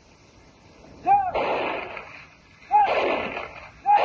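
Rifle salute fired by an honour guard: three volleys, each a sharp crack that trails off. The volleys come roughly a second and a half apart, the last near the end.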